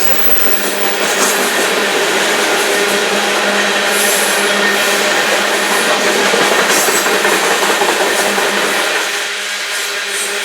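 Union Pacific coal train cars rolling past steadily, their steel wheels running on the rails, with a steady hum. The low rumble drops away about nine seconds in.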